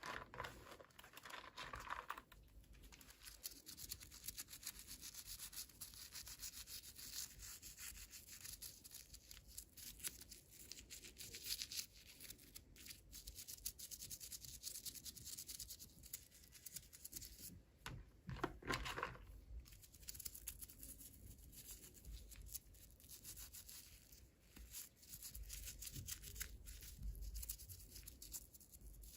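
Faint rubbing, scratching and crinkling of toy packaging being handled and opened by hand, with a slightly louder rustle a little past halfway.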